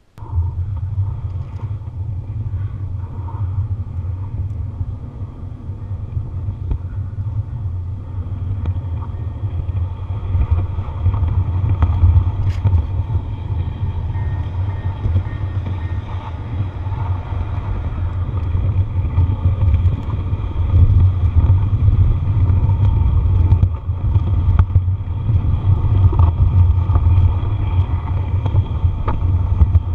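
G-scale model locomotive pushing a snowplow through deep snow, picked up by a camera riding on the train: a steady low motor-and-gear rumble with a faint steady whine above it and an occasional click. It starts suddenly and runs on without a break.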